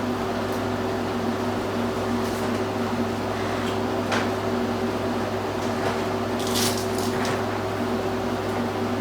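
Steady mechanical hum at a constant pitch, with a few faint short crackles or clicks about four seconds in and again around six to seven seconds in.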